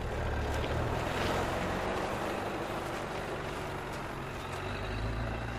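A motor vehicle's engine running steadily with road noise: a low hum under a broad hiss, swelling slightly near the end.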